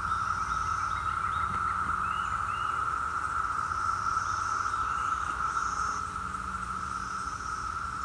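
Brood X periodical cicadas singing in chorus: a steady, continuous drone of many insects at once, a little fainter in the last couple of seconds. A few short chirps sound over it.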